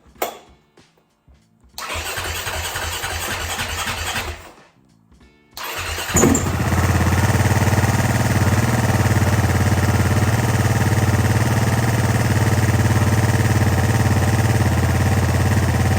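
Freshly rebuilt KTM EXC enduro motorcycle engine cranked for its first start. A first attempt of about two seconds of cranking dies away; a second attempt catches about six seconds in with a sudden loud burst and settles into steady running.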